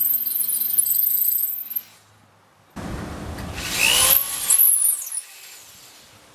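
Power drill boring a pin hole through a shovel's steel socket and wooden handle: it runs with a steady high whine, stops about two seconds in, then starts again a little later with its pitch sliding up and down before cutting off.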